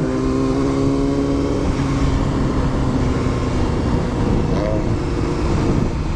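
Honda CBR600's inline-four engine running while the bike is ridden, its pitch easing down a little over the first couple of seconds and then holding steady, with wind buffeting the microphone.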